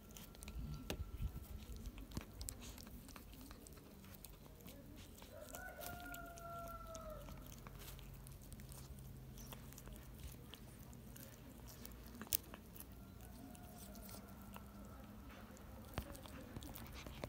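Cat chewing and tearing at a pigeon carcass: soft wet chewing with scattered small crunches and one sharp crack about twelve seconds in. A faint chicken call, drawn out and slightly falling, comes about six seconds in, with fainter ones near the start and near the end.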